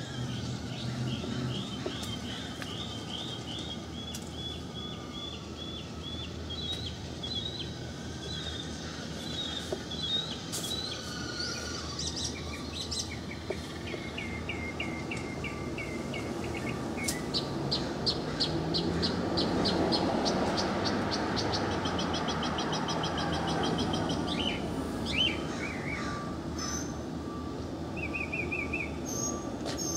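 Small birds singing in street trees: runs of quick, high chirps and rapid trills, repeated through the clip. Over a steady street hum, the sound of a passing car swells and fades about two-thirds of the way through.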